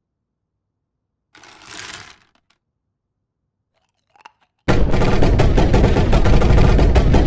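Near silence, broken by a brief soft rustle and a faint click. About two-thirds of the way in, a sudden loud, rapid clatter of sharp strikes starts, about ten a second, and keeps going.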